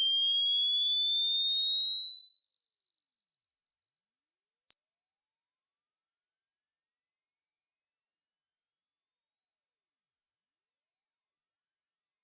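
An electronic pure sine test tone sweeping slowly and steadily upward in pitch, from a high whistle to a very shrill, piercing one: a frequency sweep played to test a dog's hearing range.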